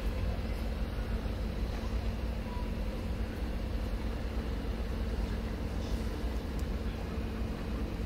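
A vehicle's engine running steadily: an even low rumble with a constant hum.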